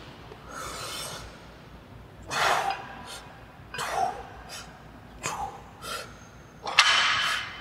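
A man's forceful breathing during bent-over barbell rows: a sharp, noisy exhale with each pull, roughly every second and a half.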